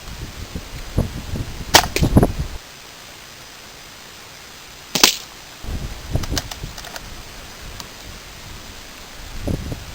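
Bolt-action RWS 850 Air Magnum .22 CO2 rifle firing a single shot, a sharp crack about five seconds in. Before it come two sharp clicks near two seconds in and scattered handling noise.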